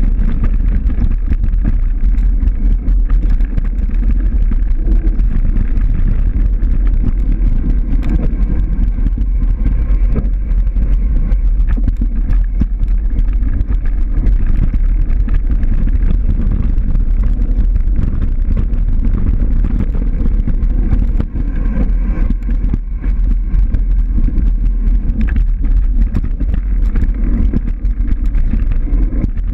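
Loud, steady low rumble, as of wind buffeting a camera microphone on the move, with scattered small clicks and rattles.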